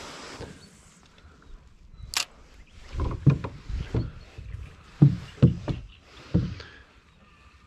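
Small boat on the water: a sharp click about two seconds in, then a series of low thumps and splashes at uneven intervals, about half a second to a second apart.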